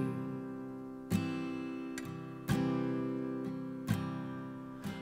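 Acoustic guitar strumming a slow song: a chord struck about every second and a half, each left to ring and fade.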